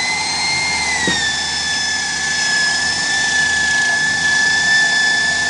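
A power tool's motor running with a steady high-pitched whine. Its pitch sits slightly higher for about the first second, then drops a little and holds steady.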